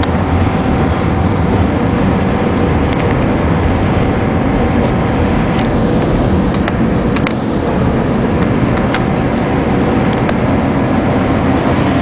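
SEPTA Market-Frankford Line elevated train running at speed, heard from inside the car: a loud, steady rumble with a faint steady whine and occasional sharp clicks.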